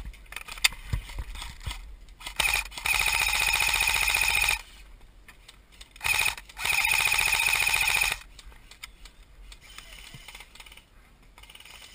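Airsoft rifle firing two full-auto bursts of about two seconds each, a rapid, even rattle of shots, with scattered clicks and knocks between.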